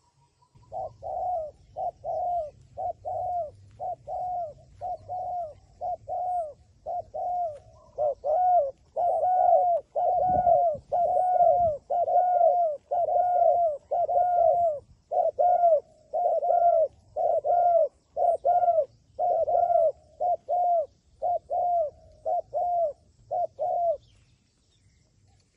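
A dove cooing over and over: a long run of short, low coos, about one or two a second, that stops shortly before the end.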